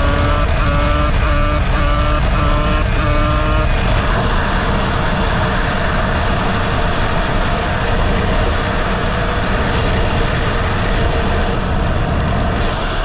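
Honda CR250R's single-cylinder two-stroke engine running as the dirt bike rides at speed, buried in heavy wind rush on the helmet microphone. For the first few seconds a repeating tune of short notes plays over it, then stops.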